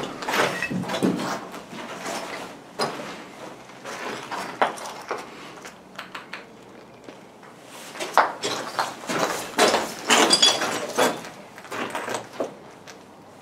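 Footsteps scuffing and crunching over the littered floor of a derelict building, with scattered knocks and clatter, busiest about eight to eleven seconds in.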